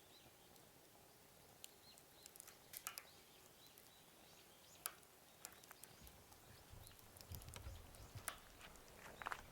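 Faint crackle of a wood campfire: scattered sharp pops and snaps over a soft hiss, with a low rumble starting about six seconds in.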